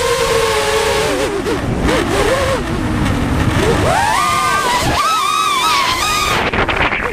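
Multirotor drone motors whining as heard from the onboard camera, the pitch wavering up and down with throttle changes through a dive, climbing higher and then dropping off near the end. Wind rushes over the microphone throughout.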